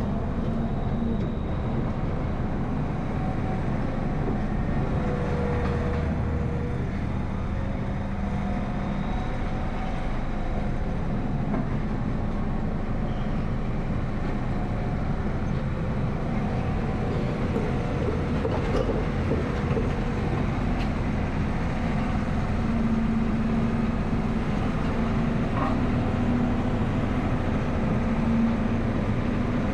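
Excavator's diesel engine running steadily under working load, with its pitch lifting a little now and then as the hydraulics take up the work.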